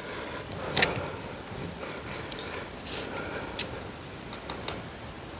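Scattered small clicks and creaks of a spring-loaded telescopic curtain rod being twisted and adjusted by hand at its joint.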